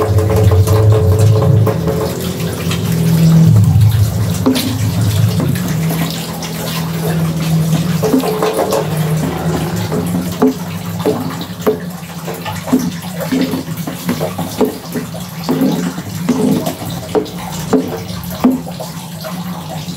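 Peanuts in boiling coconut-milk water being stirred in a wok with a plastic spatula: sloshing and bubbling liquid. From about eight seconds in come repeated stirring strokes, about one or two a second. A low hum sits under the first several seconds.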